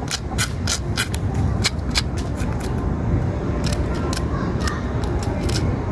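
Knife blade scraping scales off a whole fish in quick strokes: rapid sharp rasping clicks, about three or four a second at first, then more spaced out. A steady low rumble sits underneath.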